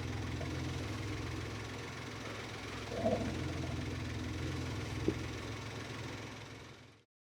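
Suzuki Jimny JB64's 660 cc turbo three-cylinder engine idling steadily with a low hum. A brief higher-pitched sound comes about three seconds in and a sharp click about five seconds in, and the sound fades out near the end.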